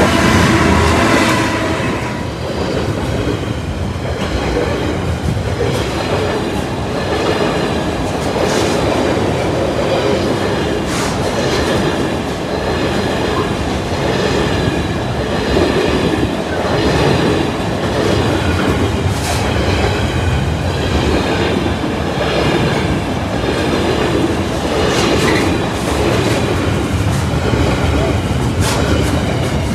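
Freight train passing close by at the level crossing: a continuous loud rumble of the wagons on the rails, with irregular knocks and clatter from the wheels.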